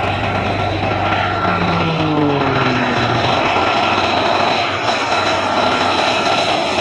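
F-35 Lightning II's single Pratt & Whitney F135 turbofan running at taxi power: a steady jet rush with high whining tones, and a few falling tones about two seconds in.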